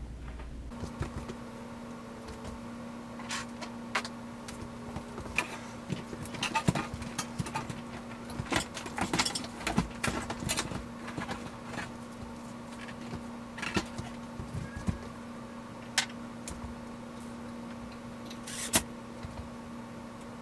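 Scattered clicks, knocks and rattles as a dishwasher is handled and pushed back into its cabinet opening, busiest in the middle, with one sharp knock near the end. A steady hum runs underneath from about a second in.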